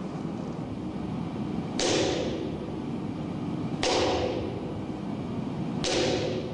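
Sharp kendo shinai (bamboo sword) blows, one about every two seconds. Each starts suddenly and rings out for most of a second.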